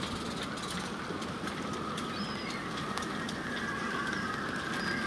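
Wind whistling steadily through the rigging of moored sailboats, with irregular light clicks and taps of rigging and fittings, the sign of a rising storm.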